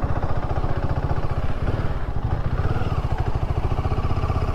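Royal Enfield Himalayan 450 single-cylinder motorcycle engine idling steadily, with an even, rapid low pulse.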